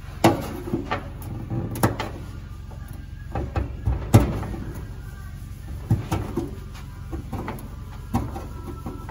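A screwdriver clicking and knocking against the sheet-metal inner fender of a 1966 Chevy C10 as it pries at the leftover remains of the original wiring clips. The clicks and clunks come sharp and irregular, about a dozen of them, with the loudest about four seconds in.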